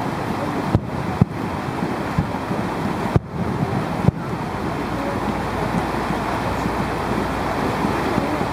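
Distant aerial fireworks bursting: three sharp booms in the first few seconds and a fainter one about four seconds in, over a steady rush of wind noise on the microphone.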